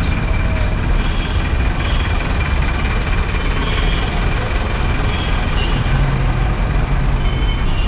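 Busy street traffic dominated by a bus engine running close by, a steady low rumble with no pauses.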